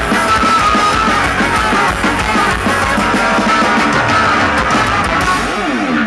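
Ska-punk band playing loud live on stage: electric guitar, trumpet and drums over a steady beat, heard from the crowd.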